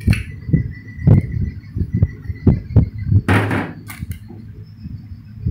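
A hand tossing and pressing shredded vegetable spring-roll filling in a plastic bowl, making irregular dull thumps two or three a second. There is a brief hissing rustle about three seconds in.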